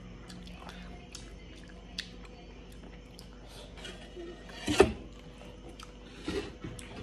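Quiet eating sounds: soft chewing and scattered small clicks of spoons and forks against steel bowls, with one louder knock a little before five seconds in.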